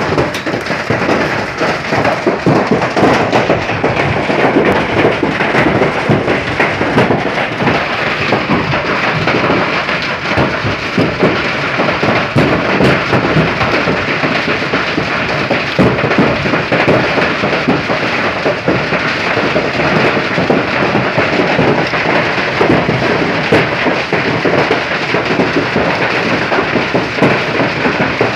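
Heavy hailstorm: hailstones and rain pelt the ground and vegetation in a loud, dense, unbroken clatter of countless small impacts.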